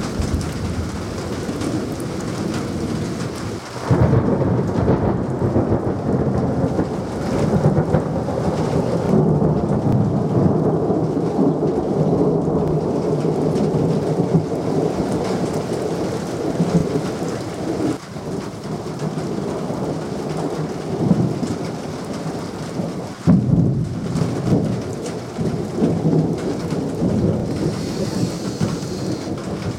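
Thunderstorm: thunder rumbling almost without a break over steady rain, with sudden loud peals about four seconds in and again about two-thirds of the way through.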